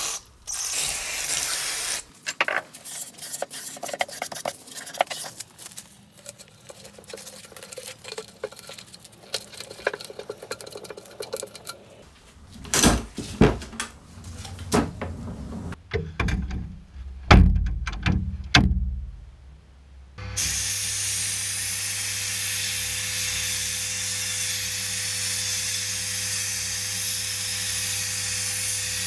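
A short aerosol spray, then clunks and rattles as a sandblast cabinet is handled. After that comes the steady hiss of the cabinet's blasting gun working, over a steady hum.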